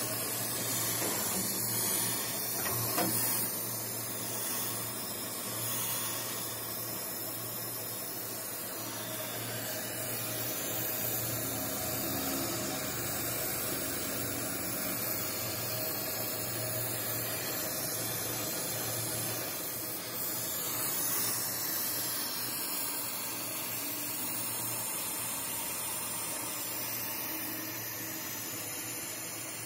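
Oxy-fuel gas torch flame hissing steadily as it heats the bent section of an axle shaft for straightening, over a steady low hum from the shop.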